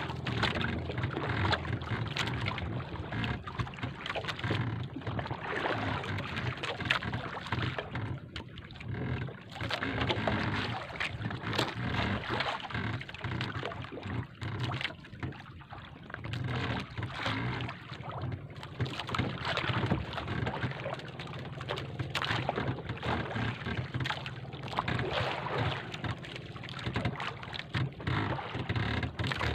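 Motorized outrigger fishing boat running steadily under way while trolling: a constant low engine hum under a rushing noise of water and air.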